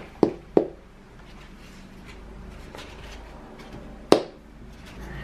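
Three quick, sharp knocks in the first half-second, then low handling noise, then one loud knock about four seconds in.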